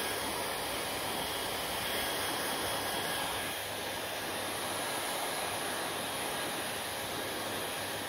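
Handheld hair dryer blowing steadily: a constant rush of air with a faint steady whine from its motor, dipping slightly after about three and a half seconds.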